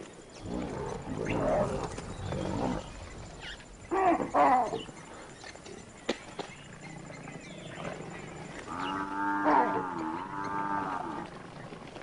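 Lions growling and snarling as they attack a Cape buffalo bull. Loud calls come about four seconds in, and the buffalo gives one long bellow near the end.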